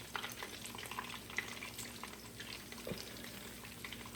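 Hot frying oil crackling and sizzling faintly with scattered small pops after the fried chicken has been taken out of the pan.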